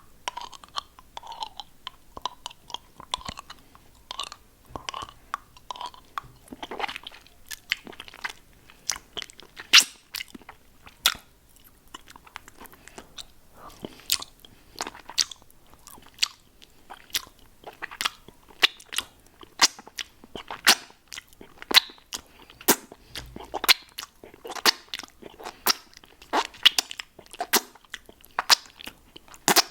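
Close-miked mouth sounds of eating a lollipop: wet smacks and sharp, irregular clicks and crunches, growing denser and louder from about halfway through.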